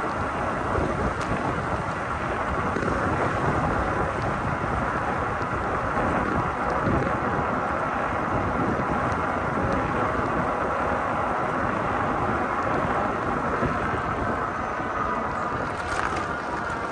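Wind buffeting the microphone and tyre rumble from a Cyrusher XF800 fat-tyre e-bike riding steadily along, with a faint steady whine underneath and a few small clicks near the end.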